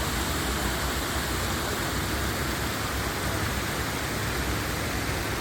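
Landscaped garden waterfall: water pouring and splashing in a steady, unbroken rush.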